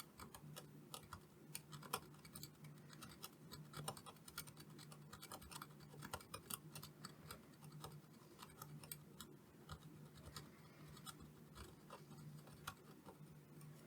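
Faint, irregular scratching and light ticking of small hand tools working on a circuit board, over a steady low hum.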